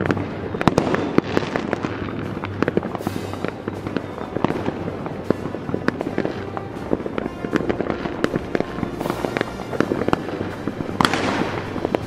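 Fireworks bursting and crackling, a dense run of sharp irregular pops and bangs, with music underneath.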